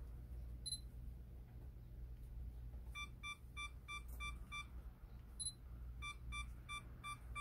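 Sony α6000 mirrorless camera beeping while a test shot is taken: a single short high beep about a second in and again past the middle, and two runs of quick, evenly spaced lower beeps, about three a second.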